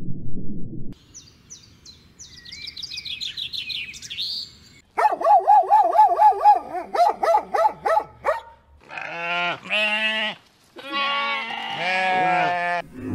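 A sequence of animal calls: a run of high chirps, then a fast wavering call, then two long pitched calls of about a second and a half each.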